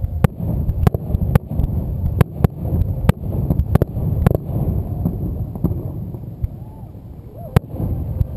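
Fireworks display: aerial shells bursting one after another, sharp bangs over a continuous low rumble. The rumble eases off after about five seconds, and the loudest single bang comes near the end.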